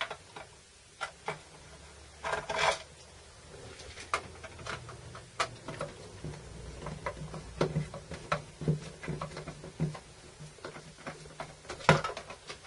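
A screwdriver turning screws out of the plastic case of an Antex 660-TC soldering station: scattered small clicks and taps of the screwdriver and fingers on the plastic housing, with a sharper click near the end.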